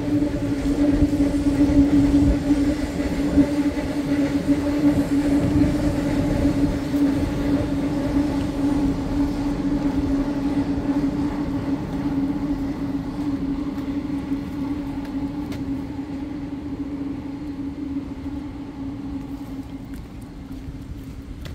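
Steady low mechanical hum: a constant drone note over a low rumble, slowly growing fainter.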